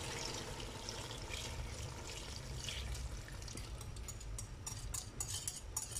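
Coconut milk pouring from a bowl into an aluminium pot of pork belly, a steady liquid pour that thins out, with small sharp clicks and drips in the last couple of seconds.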